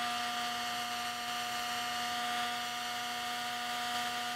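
Handheld electric heat gun running steadily: its fan motor hums at a constant pitch over the rush of blown air.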